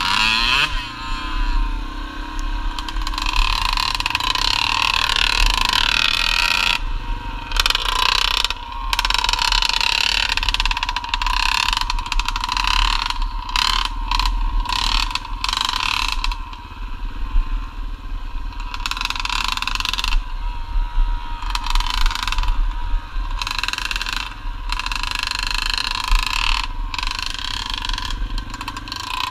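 Yamaha dirt bike engine running as the bike is ridden along a trail, with wind rumbling on the microphone. The sound thins out briefly many times, mostly in the middle stretch.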